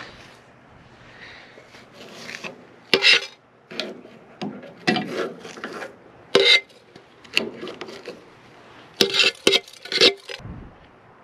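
Steel parts and tools being handled and shifted on steel: several sharp clanks that ring briefly, with scraping and rubbing between them.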